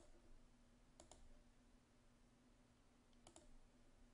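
Faint computer mouse clicks, in close pairs, three times a second or two apart, as files are selected and deleted, over a faint steady hum.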